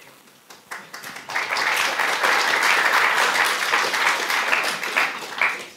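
Audience applauding, building up about a second in and stopping sharply near the end.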